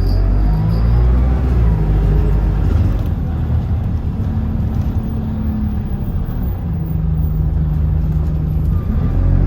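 Bus engine running with a steady low rumble, its pitch shifting as the bus drives along.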